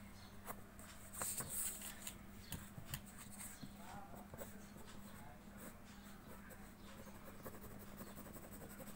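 Pencil scratching on paper in quick, short hatching strokes, loudest about a second in, over a faint steady low hum.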